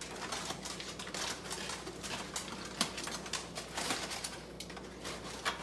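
Aluminium foil crinkling and rustling in irregular bursts as it is pulled open by hand, with a few sharper crackles.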